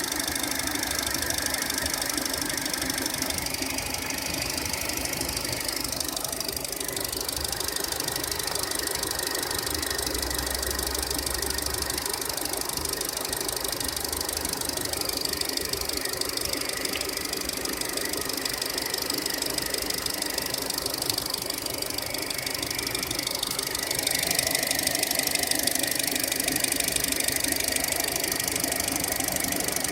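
SsangYong Korando's G20D petrol engine running with a steady, fast ticking knock. The owner thinks it is the hydraulic valve lifters, since fresh oil did not cure it.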